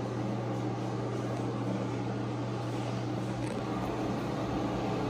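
Steady hum and rush of a restroom ventilation fan, with a constant low drone.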